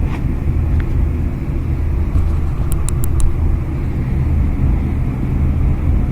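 Maytag Epic Z gas dryer running, a steady rumble of exhaust air rushing through its just-cleared vent duct, with a few light clicks about halfway through.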